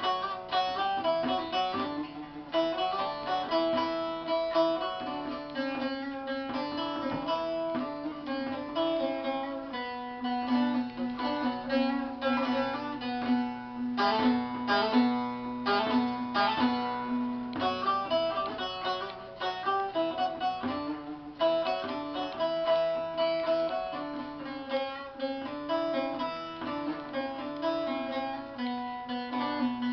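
Instrumental music: a plucked string instrument playing a busy, fast-moving melody over steady lower notes, with no singing.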